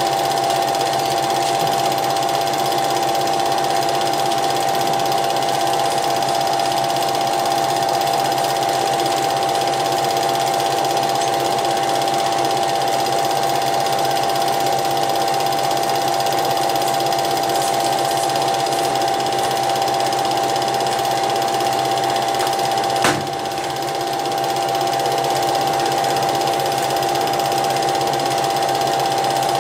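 Cine film projector running: a steady mechanical whir and rattle with a constant high tone over it. Once, about three-quarters of the way through, a sharp click, after which the sound dips briefly and recovers.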